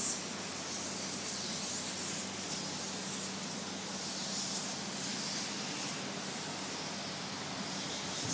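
Steady outdoor background hiss, swelling and easing slowly, over a faint low hum that fades out near the end.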